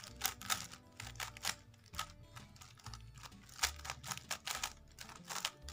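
A 3x3 speedcube being turned quickly by hand, its layers clicking and clacking in an irregular run of a few turns a second as a scramble is applied.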